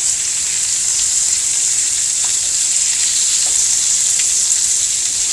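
Meat searing in a hot skillet: a steady sizzle of spitting fat, with a few small pops.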